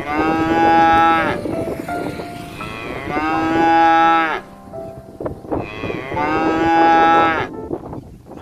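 A cow mooing three times, each moo a long, drawn-out call of about one and a half seconds, with short gaps between them.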